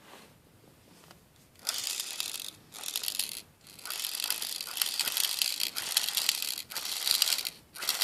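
Pikachu Happy Meal toy's stiff rear wheels rolled hard over and over, turning its spark mechanism with a rapid ratcheting grind in about six strokes, starting after a quiet first second and a half. The mechanism is not yet broken in and gives no spark.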